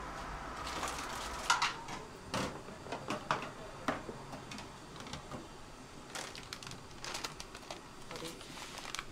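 Scattered light clicks and knocks of tableware being handled, the sharpest about a second and a half in, with several more in quick succession over the next few seconds.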